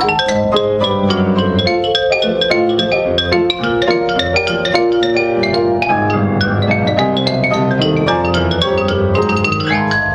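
Xylophone playing fast ragtime runs of rapid mallet strikes, with grand piano accompaniment of bass notes and chords beneath.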